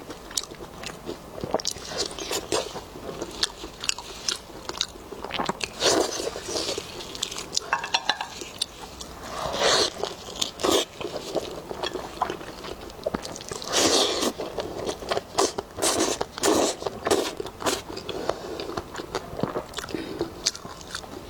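Close-miked eating of lamb ribs: biting and chewing, with many sharp wet mouth clicks and louder, crunchier bites every couple of seconds.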